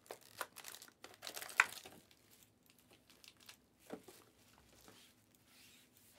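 Foil Panini Spectra card packs crinkling as they are handled: a cluster of irregular crackles in the first two seconds, the sharpest about a second and a half in, then sparser rustles.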